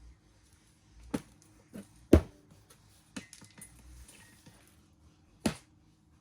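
A few sharp knocks and clatters from repotting a plant, with light rustling between them. The loudest knock comes about two seconds in and another near the end.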